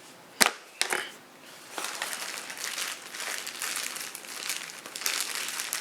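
Plastic wrapping crinkling as it is handled, dense crackling that sets in about two seconds in and keeps up. A sharp click comes about half a second in, and a smaller one just before the second.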